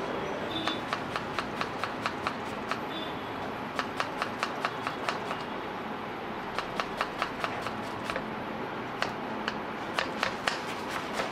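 Kitchen knife chopping a tomato and then a red onion on a plastic cutting board: runs of sharp taps, about four a second, broken by short pauses, over steady background noise.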